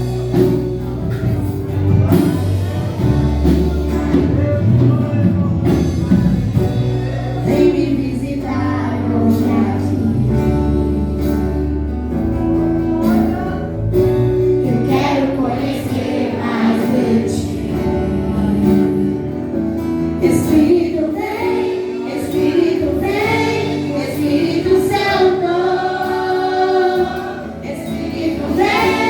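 Gospel worship song: voices singing over instrumental accompaniment with sustained low bass notes and regular percussion hits.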